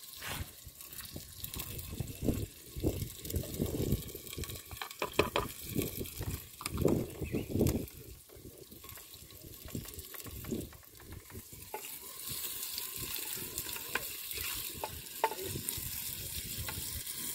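Sliced red onions frying in hot oil in a clay cooking pot over a wood fire, with irregular knocks and scrapes of a wooden spoon stirring them against the clay. About twelve seconds in the sizzle settles into a steadier hiss.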